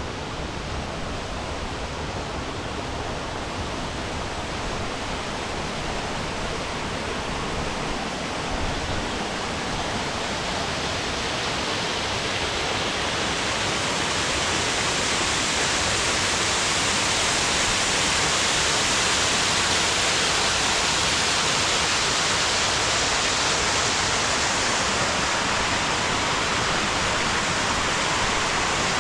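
Steady rushing water, a waterfall or fast stream, that grows louder about halfway through and then holds steady.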